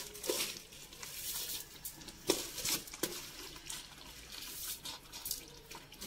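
Washed rice being pushed by hand out of a plastic bowl into a pot of tomato stew: soft, irregular wet patters as it drops into the sauce, with a couple of sharper clicks about two and three seconds in.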